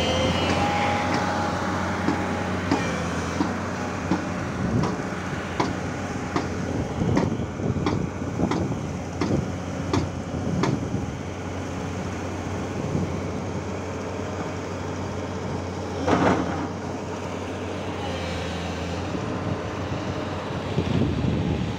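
An engine runs steadily with a low hum. Over it come irregular sharp metallic clicks and taps, most of them in the first half, and one louder knock about three quarters of the way through.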